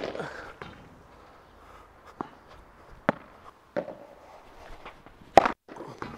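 Padel rally: sharp pops of the ball off the rackets and its bounces on the court, about half a dozen spread over a few seconds. The near player's Cork Light III foam-core racket gives the loudest hit, just after five seconds in.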